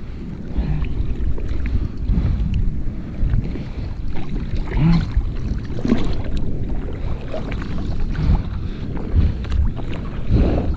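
Sea water sloshing and splashing close to the microphone, with wind buffeting it, in an uneven rush of noise.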